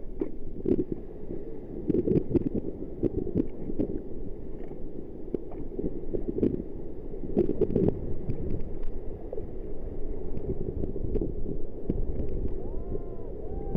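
Sea water sloshing and splashing around a camera held at water level in the surf, muffled and low, with irregular surges as waves pass over and around it.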